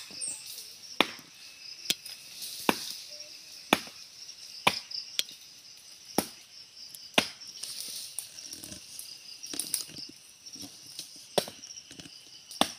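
Machete blows chopping into a small tree trunk near its base, about one sharp chop a second, a little irregular. Insects buzz steadily and high-pitched underneath.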